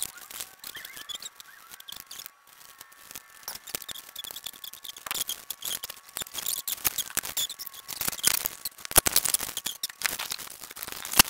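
Small objects being handled: a dense run of irregular clicks, taps and rustling scrapes, busier in the second half, with sharp clicks a little after halfway and again just before the end. A faint steady whine sits underneath.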